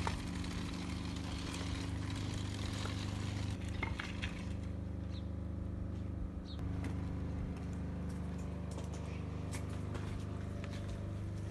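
Steady low engine hum of an idling vehicle, with a few faint clicks and ticks over it.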